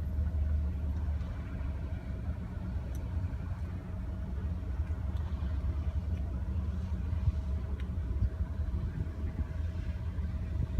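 Lake Biwa passenger ship's engines running steadily while it docks: a low, even rumble with a faint steady hum above it.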